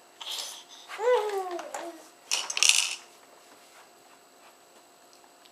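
A 5-month-old baby babbling: a short breathy sound, then a high voiced sound falling in pitch about a second in, and a loud breathy burst a little later; after about three seconds it goes quiet.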